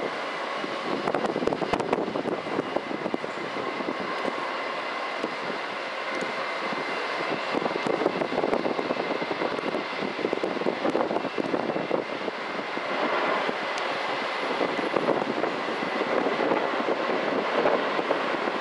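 The twin General Electric CF6-80E1 turbofans of an Airbus A330-300 running at takeoff thrust during the takeoff roll: a steady, continuous jet noise with a thin, steady whine above it.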